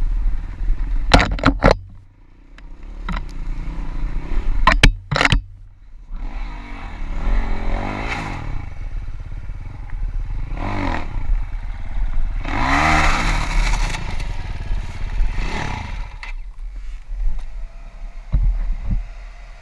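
Avantis 300 Pro enduro motorcycle engine, with several sharp clacks in the first five seconds, then revved up and down four times. The engine has a knock, a rattle that began after about 110 engine hours.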